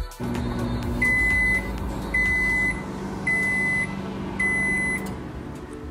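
GE over-the-range microwave oven finishing its cooking cycle: it runs with a steady low hum, and about a second in it gives four long, evenly spaced high beeps, the end-of-cycle signal. The hum stops about five seconds in.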